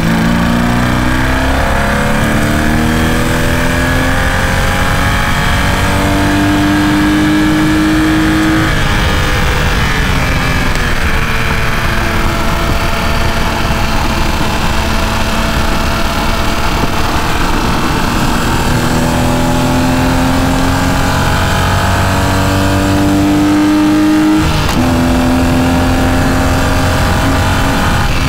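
Car engine heard from inside the cabin on a hard track lap, pulling up through the revs. The pitch climbs for several seconds, falls away about eight seconds in for a corner, and runs lower for a while. It then climbs again, drops sharply at an upshift about twenty-four seconds in, and rises once more.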